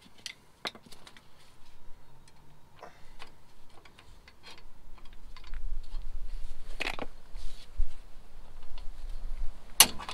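Scattered light metallic clicks and clinks of rear drum brake hardware (shoes, springs and parking-brake cable) being handled and fitted onto the backing plate, with a few sharper knocks, the loudest near the end.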